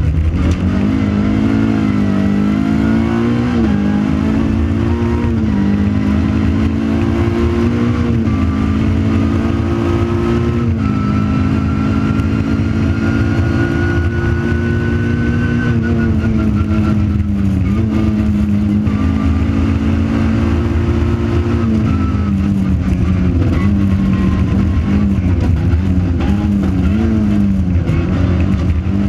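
Opel Corsa rally car's 1600cc four-cylinder engine at full load, heard from inside the cabin, its revs climbing and dropping sharply several times. A fainter whine rises slowly in pitch through the middle stretch.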